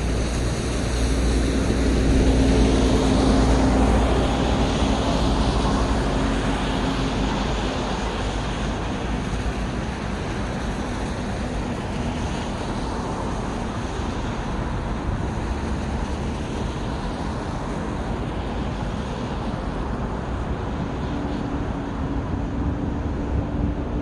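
City road traffic: one vehicle passes close by, its engine hum and tyre noise swelling and fading over the first several seconds, over a constant wash of traffic noise. A steady engine hum comes back near the end.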